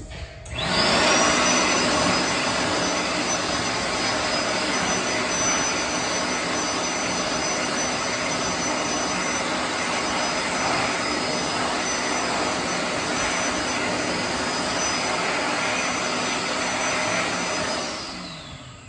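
World Dryer SLIMdri (L-971A) hand dryer triggered by its hand sensor: the motor whines up about half a second in, then blows air at full speed with a steady high whine over the rush of air. Near the end it shuts off and spins down with a falling whine.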